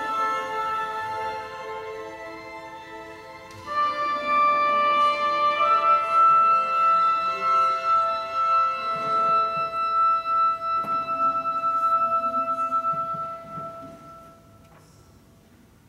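Chamber orchestra playing the closing bars of a piece: a held chord fades, a new sustained chord comes in about four seconds in and shifts a moment later, then the music dies away near the end.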